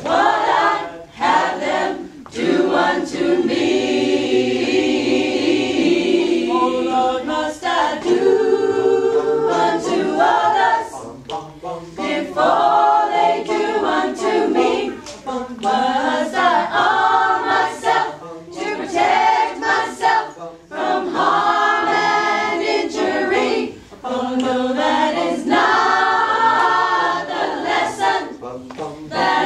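Small mixed choir, mostly women's voices with a few men's, singing a cappella in sustained phrases with brief pauses between them.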